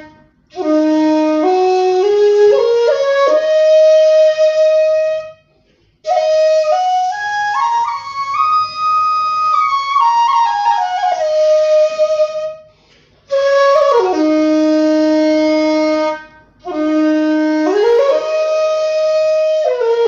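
A handmade 1.7 jimori shakuhachi of madake bamboo is played in four breath phrases. The first steps up from a low held note. The second climbs to a high note and slides back down. The third and fourth settle on the low note and rise again.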